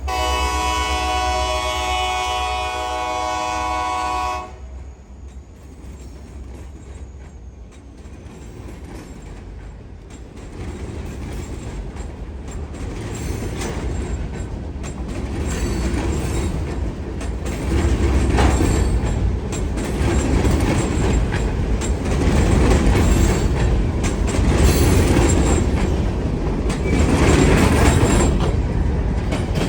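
A Wheeling & Lake Erie train's locomotive horn sounds a chord for about four seconds and cuts off. The train then rolls up with a low rumble and clattering wheels, growing steadily louder.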